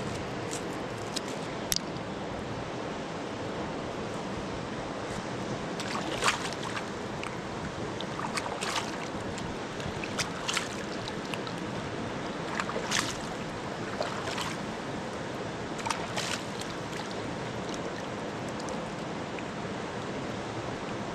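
River water running steadily, with a handful of short sharp knocks and splashes scattered over it.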